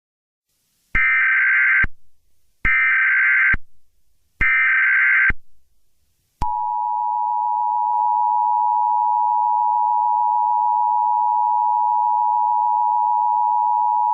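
Emergency Alert System tones: three short bursts of SAME digital header data, each just under a second, then from about six seconds in the steady two-tone EAS attention signal (853 and 960 Hz), held through the rest.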